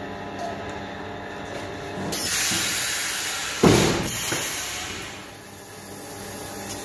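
Two-cavity plastic jar blow-moulding machine working: a steady hum, then about two seconds in a loud hiss of compressed air, a sharp pneumatic thump about a second and a half later, and the hiss dying away over the next two seconds.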